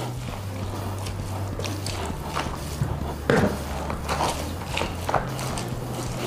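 Dog food of shredded cabbage, carrot chunks and meat being stirred in a plastic basin, first with a spoon and then by hand: soft wet rustling and scraping, with one louder brief noise about three seconds in.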